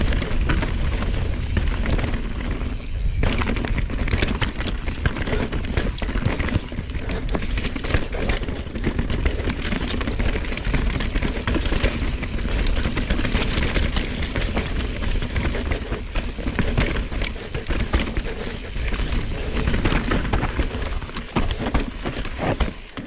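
Enduro mountain bike descending a rough, slick, muddy downhill trail: tyres sliding and rolling over mud, roots and rocks, with the bike rattling and clattering over the bumps and wind rumbling on the camera microphone.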